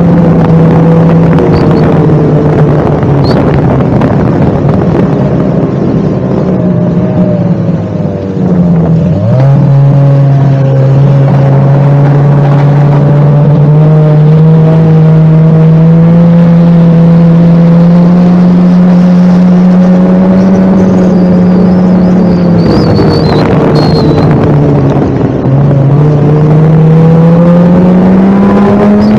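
Snowmobile engine running loud and steady at speed. Its pitch drops sharply about a third of the way in as the throttle comes off, then climbs slowly back. It sags again near the end and rises once more.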